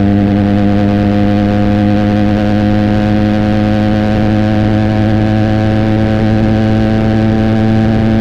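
Benelli TNT 300's parallel-twin engine through an Austin Racing aftermarket exhaust, running at steady revs under way, the note sagging slightly midway and picking up again near the end.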